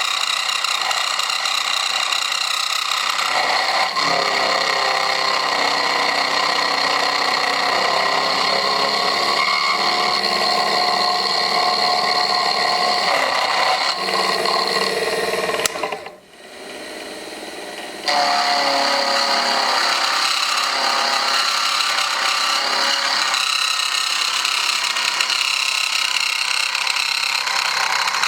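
Mini metal milling machine running, its motor and spindle giving a steady high whine mixed with cutting noise. The sound drops away abruptly about halfway through and comes back just as suddenly two seconds later.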